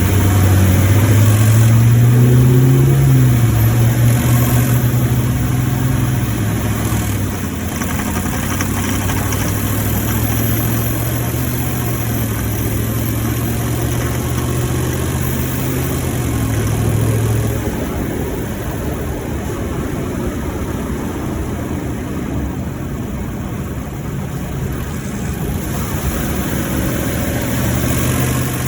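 2018 Ford F-150's 5.0 L V8 engine running while the truck is driven, its pitch rising and falling as engine speed changes, then dropping away about two-thirds through to a steady rumble of road noise before the engine hum comes back near the end. The owner is recording it for a knocking noise he hears while driving.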